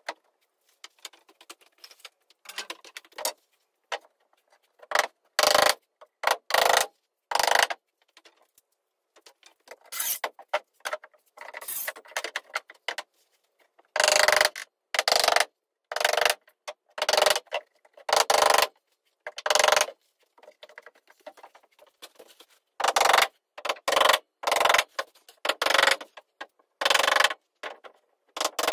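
Cordless power screwdriver driving screws in a series of short whirring bursts, each under a second, some in quick runs of two or three, with short pauses between.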